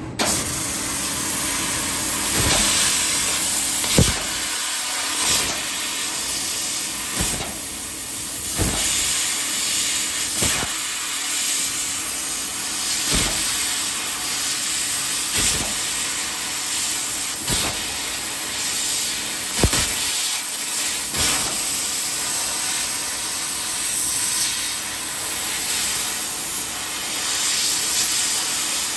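500 W fiber laser cutting head cutting thin spring steel: a steady, loud hiss of the assist-gas jet, switching on abruptly at the start, with short sharp pops every second or two between cuts.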